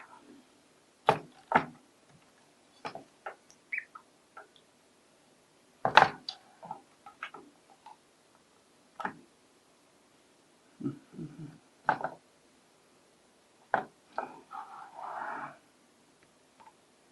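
Scattered sharp knocks and clicks of a desoldering gun and circuit board being handled and set down, the loudest about six seconds in, with a short hiss of about a second near the end.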